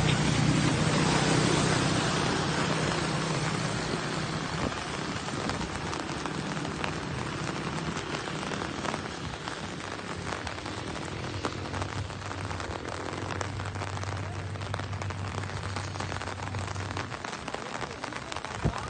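Steady rain falling, with a low steady hum beneath it that stops near the end.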